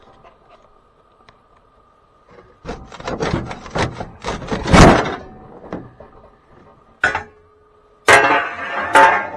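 Hand work taking a part off a Cat D6B bulldozer: a run of clanks, knocks and scrapes, loudest about five seconds in, then a single sharp knock. Music with plucked strings comes in near the end.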